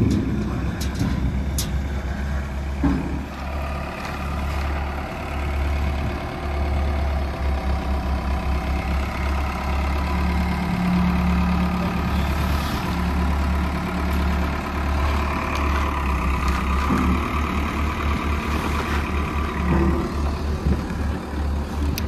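Engine running steadily while a silage bagger's bag rack is lowered, with a few short knocks in the first few seconds.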